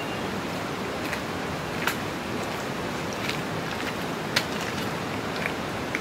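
Steady rush of flowing water from a rainforest river or falls, with a few short, sharp clicks scattered through it.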